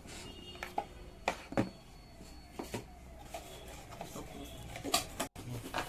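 Computer-part packaging being handled: a handful of sharp clicks and taps of cardboard and plastic being moved and set down, the loudest about five seconds in.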